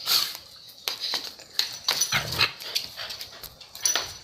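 A dog making several short vocal sounds in quick, separate bursts.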